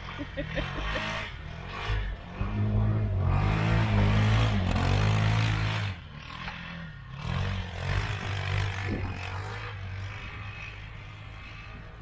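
Polaris Ranger crew-cab side-by-side's engine revving up and down as it spins donuts in snow, with a rush of spinning tyres and thrown snow. It is loudest from about two to six seconds in, then eases to lower revs with a smaller swell near the middle.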